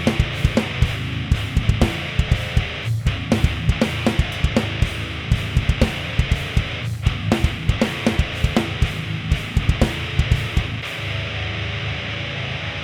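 Background rock music with distorted electric guitar and a steady, fast drum beat; the drum hits drop out near the end.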